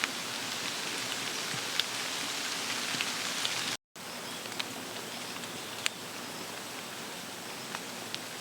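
Steady rain hiss with scattered sharp drop ticks, broken by a brief total dropout a little under four seconds in.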